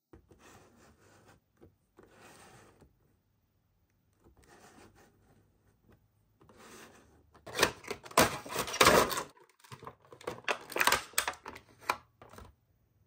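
Hands handling and opening a cardboard vinyl-figure box, with soft rustles and taps at first, then loud crinkling and crackling of its clear plastic tray insert in the second half as the figures are pulled out of it.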